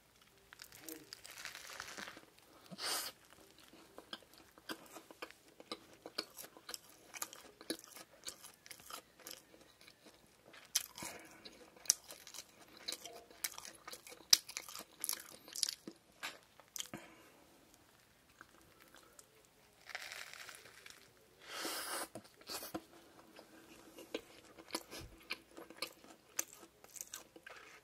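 Close-miked biting and chewing of a fried shrimp burger with two breaded square shrimp patties: many crisp crunches and wet chewing sounds, with a few louder, longer crunches about two seconds in and again around twenty and twenty-two seconds.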